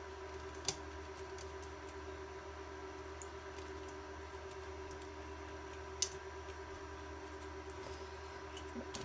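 Small clicks and taps of handling the plastic and metal parts of an IBM PC110 palmtop as its display is taken out, with a sharp click just under a second in and a louder one about six seconds in. A steady electrical hum runs underneath.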